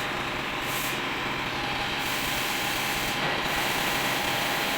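Automatic drilling machine running, a steady grinding, rubbing noise with a faint constant whine.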